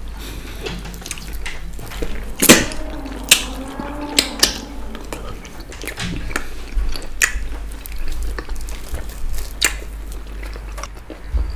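Eating by hand: fingers pinching and working plantain fufu in slimy okra and ogbono soup, with sharp wet mouth clicks and smacks every second or two.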